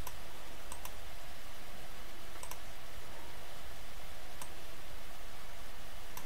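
Computer mouse clicking a few times, some clicks in quick pairs, over a steady background hiss.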